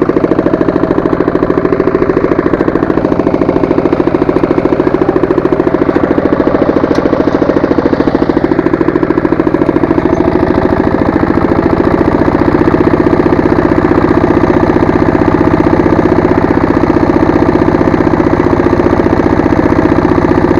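Walk-behind tractor engine running steadily under load, with a fast even pulsing beat; it grows a little louder and shifts slightly in pitch about twelve seconds in.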